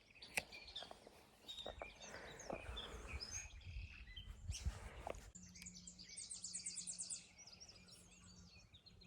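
Faint wild birdsong: scattered high chirps, and about five and a half seconds in a fast high trill of evenly repeated notes lasting about a second and a half. A few small clicks come in the first seconds.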